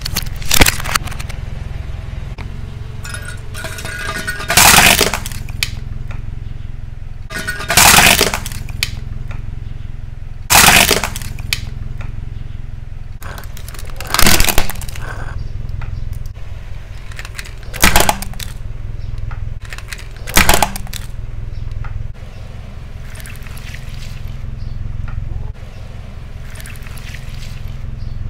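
A car tyre rolling onto plastic and glass objects one after another, each cracking and crunching as it breaks under the weight, about seven sharp crunches spaced a few seconds apart. A steady low rumble runs underneath.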